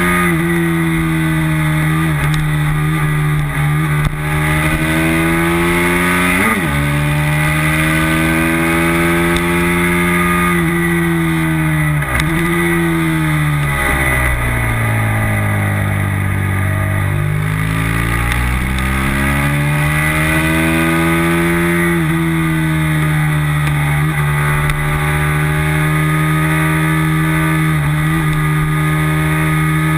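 Race motorcycle engine at full racing pace, recorded on board the bike. The pitch climbs steadily, drops sharply at several gear changes, sags through a slower stretch around the middle, then climbs again.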